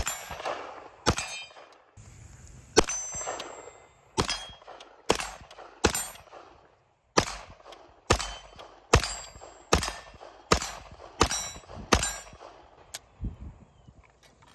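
Brigade BM-9 9mm direct-blowback AR-9 pistol fired about thirteen times at a slow, steady pace of roughly a shot a second, several shots followed by a short metallic ring. The magazine runs empty and a few faint clicks follow; the bolt does not lock back on the last round.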